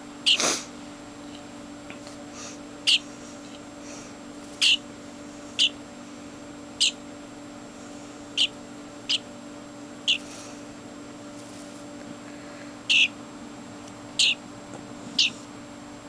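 European starling chick giving short, harsh calls, about eleven in all, one every second or two.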